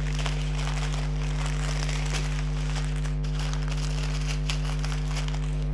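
Small plastic zip bags of diamond-painting drills crinkling as they are handled and gathered up by hand, over a steady low hum.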